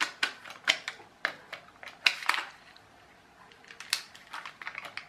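Sharp plastic clicks from the buttons of a toy steering-wheel infrared remote being pressed: a quick run of clicks over the first couple of seconds, then a second cluster near the end as the plastic wheel is handled and turned over.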